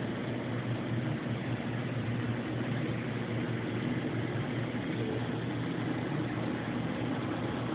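Mighty Viper PBM-135A CNC horizontal boring mill running under power: a steady machine hum with a low drone and no change in pace.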